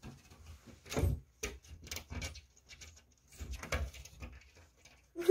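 A cat's paw scratching and tapping at a wooden window frame and glass: irregular light taps and rustles, with a short louder sound right at the end.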